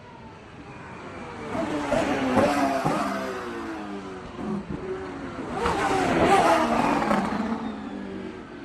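Racing car engines passing at speed, twice: each one swells up to a peak about two and six seconds in, then drops in pitch as it moves away.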